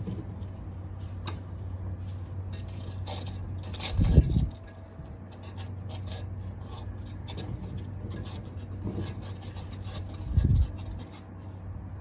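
Scraping and scratching of hand work on pavers and their gravel-and-sand bed, with many small clicks. Two dull, heavy thumps come about four seconds and ten and a half seconds in, over a steady low hum.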